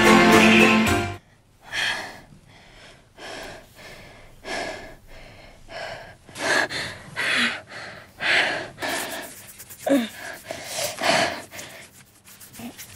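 Orchestral film theme music stops abruptly about a second in; then a person's heavy, ragged breathing follows, short gasps and exhalations coming irregularly about once a second, a few with a faint voiced moan near the end.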